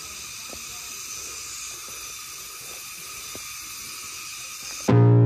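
Steady high-pitched insect chorus of the summer forest, with faint footsteps on stone steps. Near the end a loud buzzy electronic tone cuts in abruptly.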